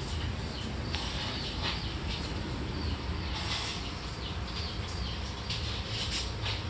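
Short high-pitched chirps repeating on and off over a steady low rumble.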